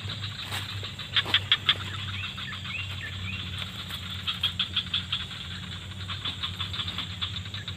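Tropical forest ambience: a steady high insect buzz with a bird repeating a short rising-and-falling call three times. Two short runs of rapid clicking stand out, about a second in and again around four to five seconds in.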